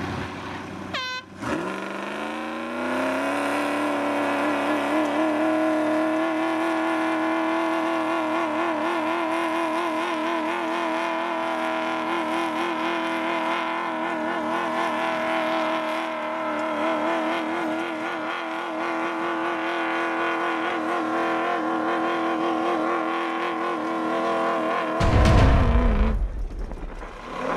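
Off-road buggy's engine held at full throttle and high revs while its tyres spin, pulling against a tethered wheel loader. After a quick rev blip about a second in, the revs climb and hold with a steady warble for over twenty seconds, then drop near the end, followed by a loud low rumble.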